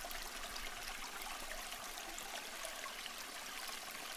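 A steady rushing, hissing noise like running water, even in level, with faint crackles through it.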